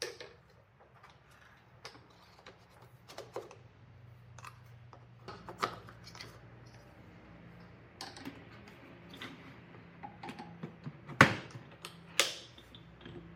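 Hard plastic knocks and clicks of a wet/dry shop vacuum being handled, as its motor head with the pleated cartridge filter is lifted off and set back onto the canister. Near the end come two sharp snaps as the head is pressed down and its side latches close.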